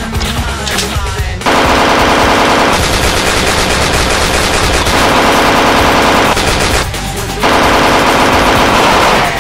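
Rapid machine-gun fire, a dubbed-in sound effect for the toy blasters, in two long bursts: one starting about one and a half seconds in, a short break near seven seconds, then a second burst to near the end. Background music plays underneath.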